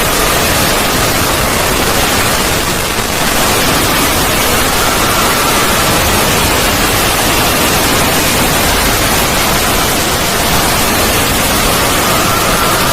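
Loud, steady static hiss, an even wash of noise across all pitches, making up a 'void' sound effect.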